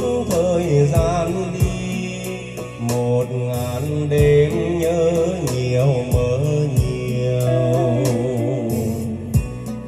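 A Vietnamese ballad playing back loud through a karaoke system of BMB 2000C speakers and a subwoofer: a melody over kick-drum hits.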